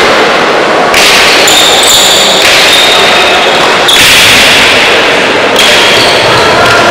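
Pelota ball being struck and rebounding off the frontón wall in a rally, a hit about every second and a half, each one ringing out in the large hall.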